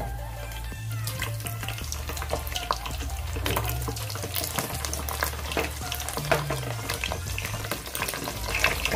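Pieces of meat deep-frying in hot oil in a metal pot, a continuous sizzle full of crackles and pops, with a wooden spoon stirring them.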